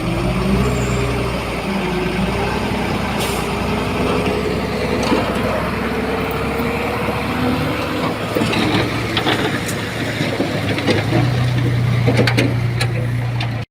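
Heavy diesel earthmoving machinery working: a steady engine drone with a whine that slowly rises in pitch and then eases. From about eight seconds in, scattered clanks and knocks join in.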